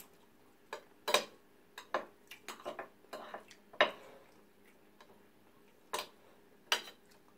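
A spoon and fork tapping and scraping on a plate of rice as people eat, in irregular clinks, the loudest about a second in and just before four seconds.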